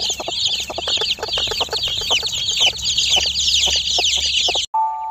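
A brood of chicks peeping continuously in rapid, high, downward-sweeping chirps, with a hen clucking low under them. The sound cuts off abruptly near the end, and a chime-like music note begins.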